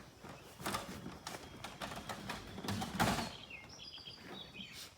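Short knocks and rustles of equipment being handled, with a louder scuffing burst about three seconds in, then a bird chirping several times near the end.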